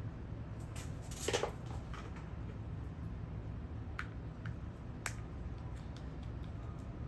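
Small hand tools clicking and tapping against an Apple Watch during a back-glass repair, with a short scrape about a second in and two sharp clicks later on, over a low steady hum.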